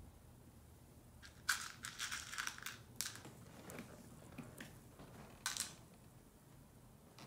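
Small plastic toy pegs rattling and clicking in a plastic cup as a child's fingers rummage through them: a dense run of quick clicks starting about a second and a half in, then a few shorter rattles.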